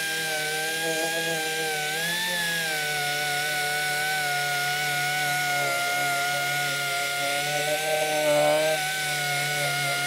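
2-inch orbital sander with a 120-grit Velcro pad running steadily against a sheet-metal patch panel, taking the sharpness off a formed bead peak: a continuous high whine that wavers slightly in pitch about two seconds in, with a brief louder scuff of the pad on the metal about eight seconds in.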